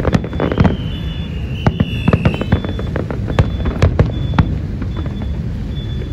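Fireworks going off, with a string of sharp, irregular bangs over a steady low rumble. About half a second in, a high whistle runs for about two seconds and falls slightly in pitch.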